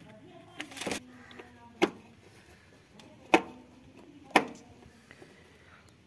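A few sharp clicks and knocks, about a second apart, from hands working at a tractor's dashboard panel and wiring.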